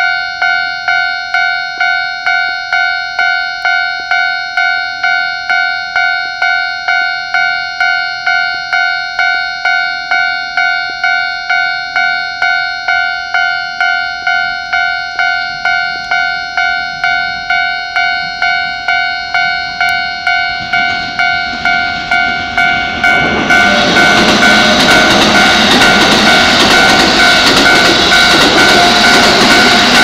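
Japanese railway level-crossing alarm ringing its rapid, evenly repeated two-tone ding. From about 21 seconds in, a Keikyu electric train approaches and passes through the crossing with a loud rush that rises over the bell.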